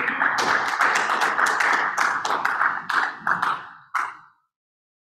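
A small audience clapping; it thins out and ends with a last clap about four seconds in.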